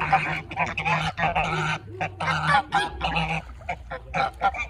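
Geese honking: a run of loud, drawn-out honks one after another, then shorter, fainter calls near the end.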